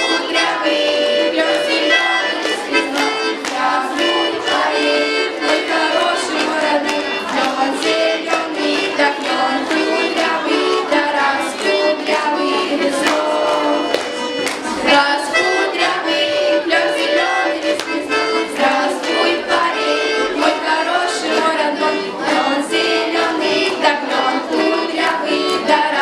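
Instrumental music: a lively folk-style tune played over a steady beat, with no singing.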